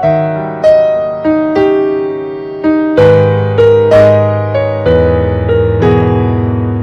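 Background music: a gentle piano tune, notes struck and left to fade, with deeper bass notes filling in about three seconds in.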